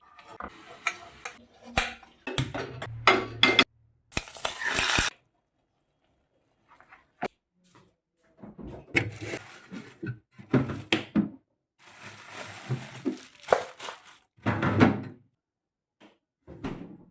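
Pots, pans and utensils clattering and knocking in short separate bursts, broken by stretches of silence.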